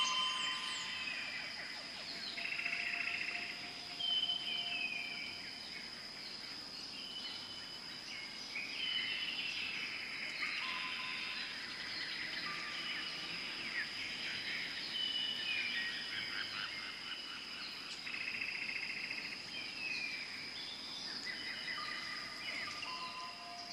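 Amazon rainforest ambience: a steady high-pitched insect drone under many birds calling, with short level whistles, falling notes and buzzy trills overlapping one another.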